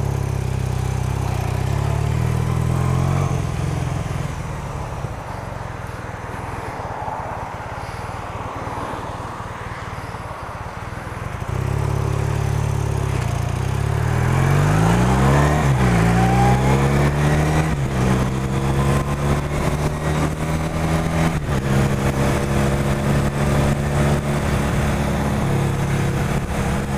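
Motorcycle engine idling, then pulling away: a little before halfway the revs climb, drop back at gear changes twice, and then settle into steady cruising.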